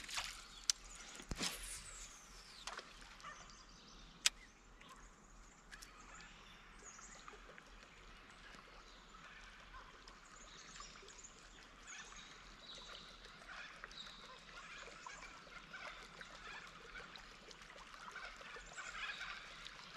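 Faint outdoor riverside ambience: a low, even hiss with scattered faint high chirps and a few sharp clicks, the sharpest about four seconds in.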